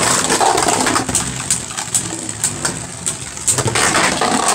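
Two Beyblade Burst Turbo spinning tops whirring in a plastic stadium, with irregular sharp clacks as they collide with each other and scrape the stadium walls and floor.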